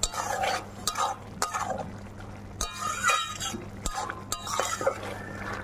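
A flat spatula scraping and knocking against an aluminium kadai while stirring a thick curry of yam stems and prawns, in irregular strokes about a second apart, over a steady low hum.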